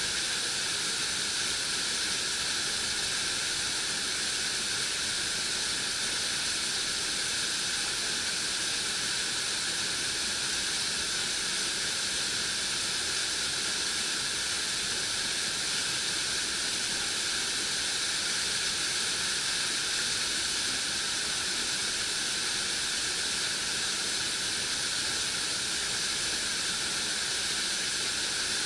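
Waterfall pouring into a shallow rock pool: a steady hissing rush of falling water.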